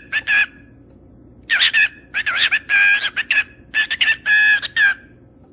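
Ringneck parakeet chattering in quick runs of high, squawky mimicked talk, with short pauses between runs.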